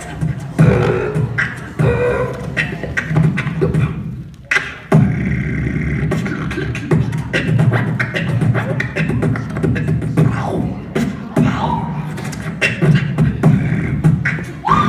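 Solo beatboxing through a handheld microphone: fast vocal clicks and snare-like hits over deep bass tones. The beat drops away briefly about four seconds in and comes back with a loud hit.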